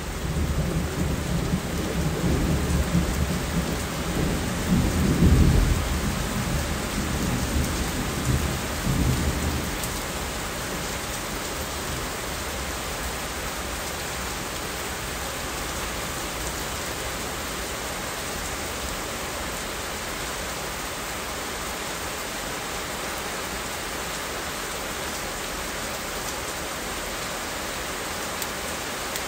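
Steady rain falling, with a long low rumble of thunder that swells to its loudest about five seconds in and fades out by about ten seconds, leaving the rain alone.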